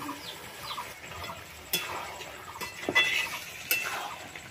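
A few sharp clinks of metal utensils against steel cookware, with birds chirping in the background.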